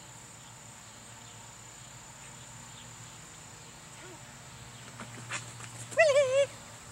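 Steady high drone of crickets or other insects. About six seconds in, a loud, high, wavering vocal call lasts about half a second, after a few faint clicks.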